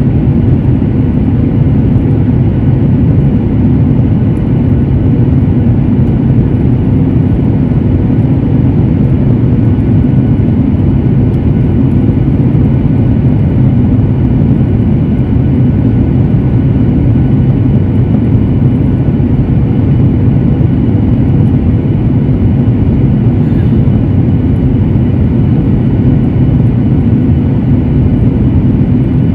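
Steady, loud low rumble of a jet airliner's engines heard inside the cabin as the aircraft taxis, with a few faint steady whining tones above it.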